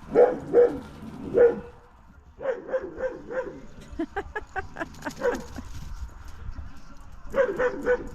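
A dog barking and yipping in short, quick runs of high barks, with a pause in the middle.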